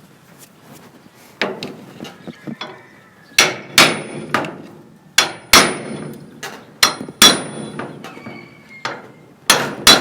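Hammer blows on a metal crowbar, about a dozen sharp, irregular strikes with a thin metallic ring, driving the bar in to pry off a wall panel.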